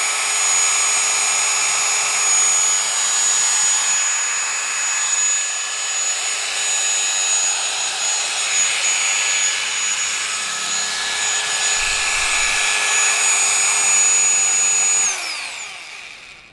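Hyundai 20 mm SDS Plus rotary hammer running free at full speed in drill-only mode, trigger locked on: a steady electric motor whine. Near the end it is switched off and winds down, its pitch falling as it fades away.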